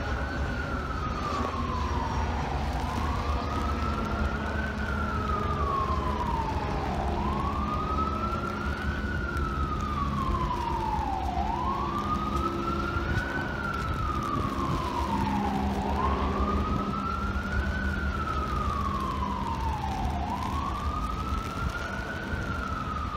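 Emergency vehicle siren in a slow wail, its pitch rising and falling about every four seconds, over a steady low rumble.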